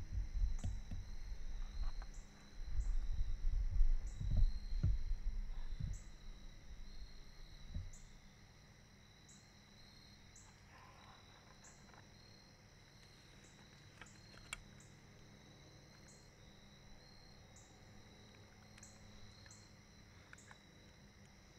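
Insects trilling in a steady high drone with a faint regular pulse about once a second. Low rumbling on the microphone covers the first eight seconds, then stops.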